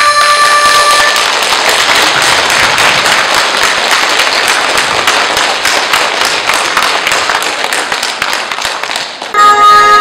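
Audience applauding as a song's accompaniment ends in the first second; the clapping thins out, and loud music starts abruptly about nine seconds in.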